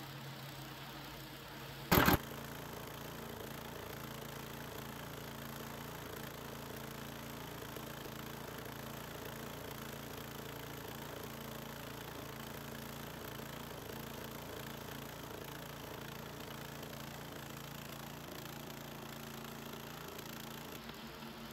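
Small gasoline engine of a Harbor Freight portable bandsaw mill running steadily at an even speed. A single short, loud knock sounds about two seconds in.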